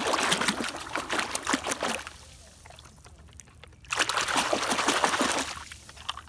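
Water splashing and pouring as a muddy toy is scrubbed and rinsed by hand in pond water, in two spells with a short lull between.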